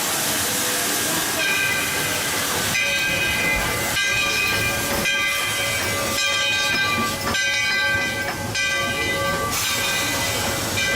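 Replica Baldwin three-chime steam whistle on Walt Disney World Railroad locomotive No. 4 sounding several chord blasts in quick succession over a steady steam hiss. The whistle comes in about a second and a half in and stops a little before the end, leaving the hiss alone.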